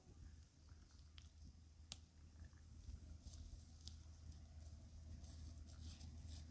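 Near silence: a faint low hum with a few faint, sharp clicks.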